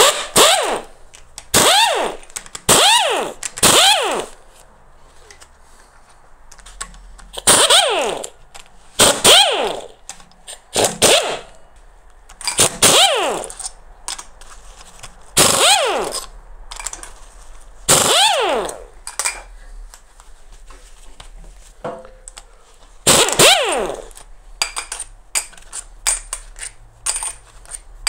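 Handheld pneumatic tool running in about a dozen short bursts, each speeding up and winding down, as it spins out the valve-cover screws of a DW12 2.2 HDi diesel engine. Near the end, light metallic clinks of screws dropped into a metal tray.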